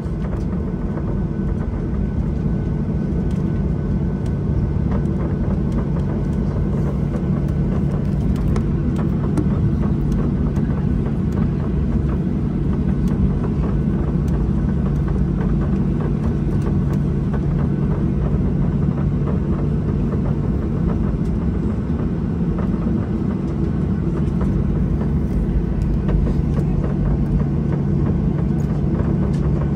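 Jet airliner cabin noise as the plane taxis: the engines run at a steady drone with a constant low hum, heard from inside the cabin.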